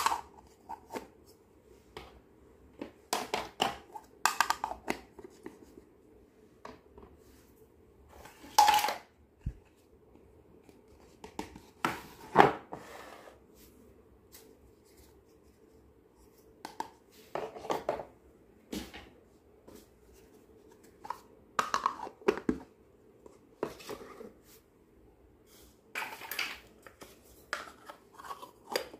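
Small plastic toy pots, clear plastic lids and toy stoves clicking and tapping as they are handled and set down. The clatter comes in short bursts a few seconds apart, over a faint steady hum.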